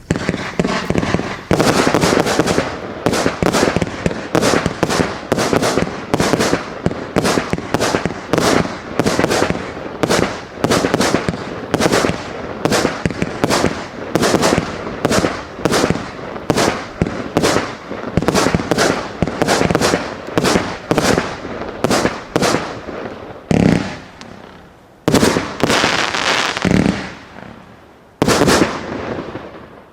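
A 200-shot fireworks cake with 0.8-, 1- and 1.2-inch tubes firing in a rapid string of shots and bursts, two or three a second. In the last several seconds it thins to a few separate booms.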